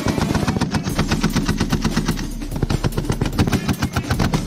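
M2 Browning .50-calibre heavy machine gun firing long, rapid bursts, the shots coming several a second with a brief lull a little past two seconds in.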